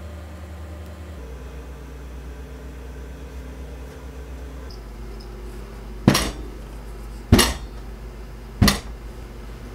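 Round metal cake pan full of pound cake batter tapped down hard on the table three times, about a second and a quarter apart, to settle the batter and knock out air bubbles before baking. A low steady hum runs underneath.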